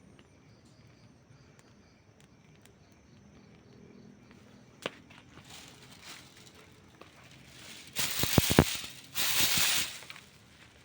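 Campfire burning: faint crackle with a single sharp pop about halfway in, then near the end a much louder flare of hissing with a quick run of pops.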